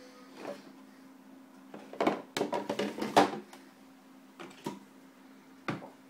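Hinged black plastic door on the front of a bean-to-cup coffee machine being handled and swung open: a dense run of knocks and clatter, then a few lighter single clicks near the end, over a steady low hum.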